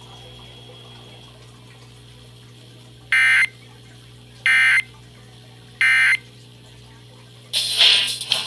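Emergency Alert System end-of-message signal: three short bursts of SAME digital data tones, each under half a second and about 1.3 s apart, marking the end of the alert. Near the end, loud music starts.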